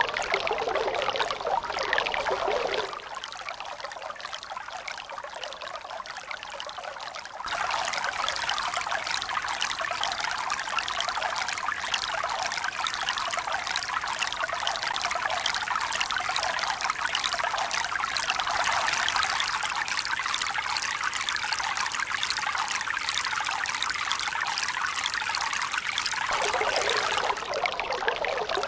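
Running water pouring and trickling in a steady rush, with no rise and fall of waves. It turns thinner and quieter about three seconds in, and fuller and louder again from about seven seconds.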